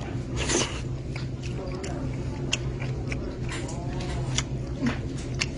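A person eating close to the microphone: chewing and mouth noises with scattered irregular clicks, over a steady low hum.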